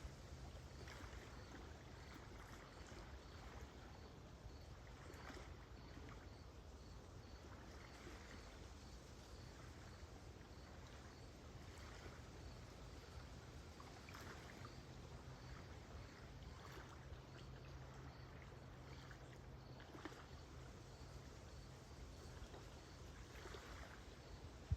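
Faint, calm lake water lapping gently at the shore in small soft splashes every second or two, with a cricket chirping steadily and faintly in the background.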